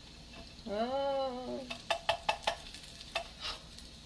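Plastic spatula clicking and scraping against a nonstick frying pan as a silicone pancake mold is worked loose, over faint sizzling of pancake batter. About a second in, a pitched tone rises and falls for about a second, louder than the rest; a run of quick taps follows.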